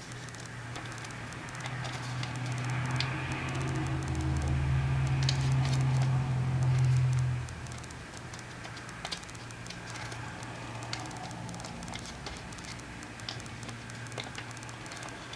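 Paper being creased and folded by hand, with soft crackles and small clicks of crinkling paper throughout. A low hum swells over the first half and cuts off abruptly about halfway through.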